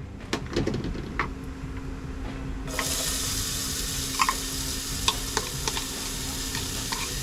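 Food frying in a pan: sizzling starts suddenly about two and a half seconds in, with clinks of a utensil stirring against the pan before and during it.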